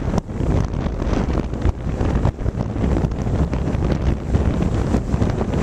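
Wind buffeting the built-in microphone of a Flip Video camcorder aboard a sailboat under way: a heavy, uneven rumble with gusts that come and go.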